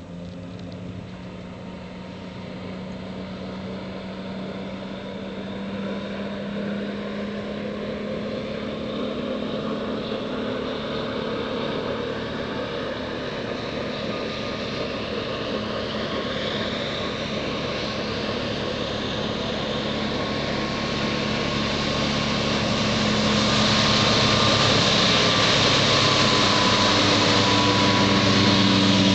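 Motorboat's new Jasper 4.3-litre V6 marine engine running steadily at about 3300 rpm, growing louder as the boat approaches and runs past close by. A rushing hiss of hull and spray joins in and is loudest near the end. The engine runs smoothly, with no backfiring or bad noises.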